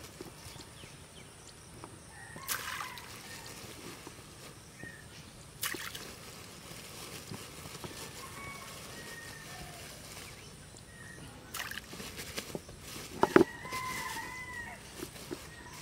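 Bait thrown by hand into a pond, landing with light splashes on the water, with a plastic bag rustling between throws; the sharpest sound comes about 13 seconds in.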